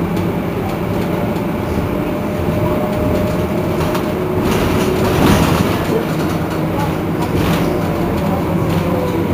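Iveco Crealis city bus running: a steady low drone with faint level whining tones over it, one of them falling slightly in pitch near the end.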